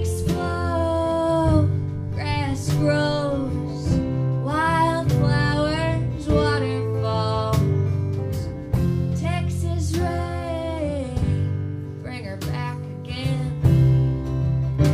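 Live acoustic country-folk band: strummed acoustic guitars under a female singing voice, the melody coming in phrases that bend and slide in pitch with short gaps between them.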